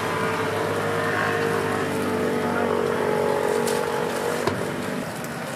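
A passing road vehicle's engine hums steadily and eases off slightly near the end, over a continuous hiss. There is a single sharp knock about four and a half seconds in.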